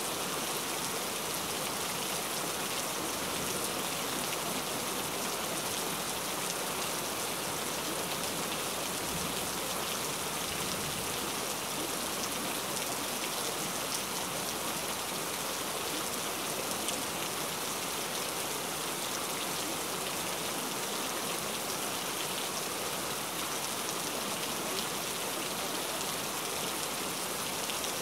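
Steady rain falling, an even hiss that holds the same level throughout with no surges or pauses.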